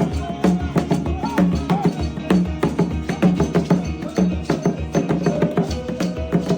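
Worship music with dense, steady percussion: quick drum strikes over a repeating low note, without clear words.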